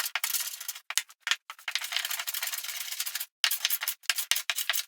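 Hand plane shaving a proud wooden patch flush with the surface of a wooden bench top: a series of hissing cutting strokes, one long stroke in the middle, then quicker short strokes near the end.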